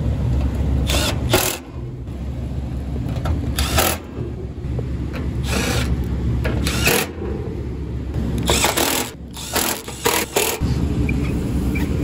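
Milwaukee M12 Fuel cordless impact driver running in several short bursts, driving screws to fasten the condenser fan guard grille, over a steady low rumble.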